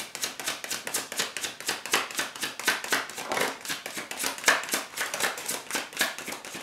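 A deck of tarot cards being shuffled by hand: a quick, steady run of card slaps and flutters, several a second.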